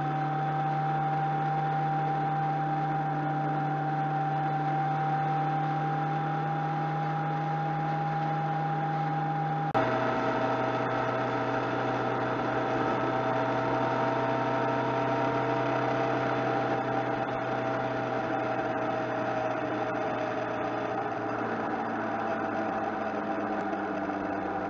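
Motorcycle engine running at a steady cruise with wind and road noise: a steady whine that creeps up slightly in pitch, then an abrupt jump about ten seconds in to a slightly lower whine that slowly sinks.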